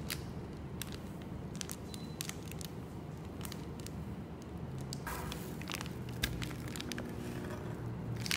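Plastic food packaging crinkling and crackling in the hands, with small clicks of a metal spoon on a ceramic bowl as chili paste is squeezed out. About five seconds in, a plastic sugar bag is handled and the rustling becomes denser.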